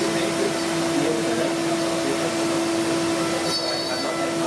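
CNC milling machine running: the spindle gives a steady tone over an even rushing noise as its end mill cuts a small wooden block.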